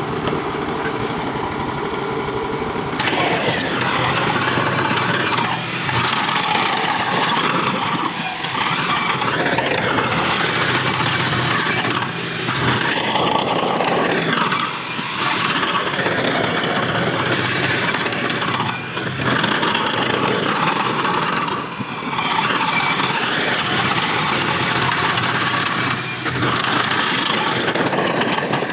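Diesel engine of heavy earthmoving machinery running, steady at first, then about three seconds in turning much louder and rougher, swelling and easing every few seconds as the machine works.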